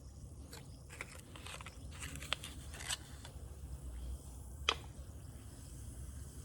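Close handling noises: scattered small clicks and crinkles, with one sharper click about two-thirds of the way through, over a low steady hum.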